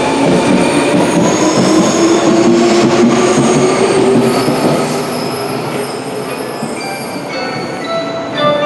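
Electric commuter train pulling out of the station: its motor whine rises slowly in pitch over the rumble and squeal of the wheels on the rails, and the sound fades from about halfway through as the train draws away.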